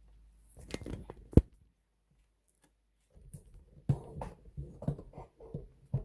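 Hands handling small parts and cables inside an opened sewing machine. A short flurry of rustling ends in one sharp click, then after a pause comes a run of small knocks and taps.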